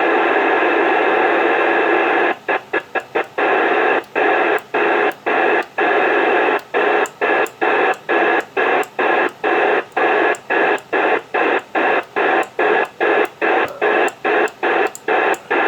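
Static hiss from a CB radio's speaker, steady at first. From about two seconds in it is broken by short dropouts, a quick flurry and then about two a second.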